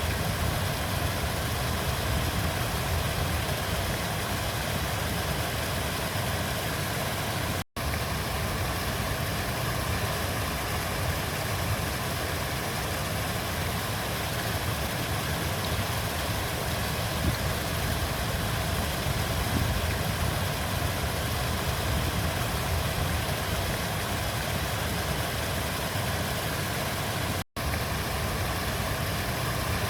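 Steady rush of a flowing river, an even wash of water noise. The sound cuts out for an instant twice, about eight seconds in and near the end.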